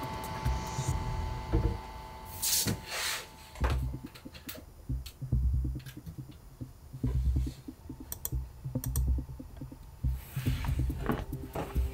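Typing on a computer keyboard: quick, irregular key clicks, with soft low thumps underneath and a short rustle about two and a half seconds in.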